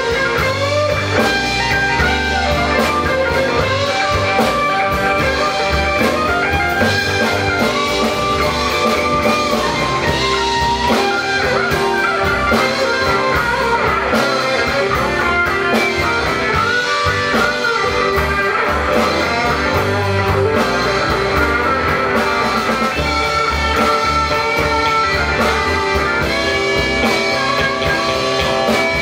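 Live blues band playing an instrumental passage of a slow blues: electric and acoustic guitars, bass guitar and drum kit, with lead lines of bent notes over the top.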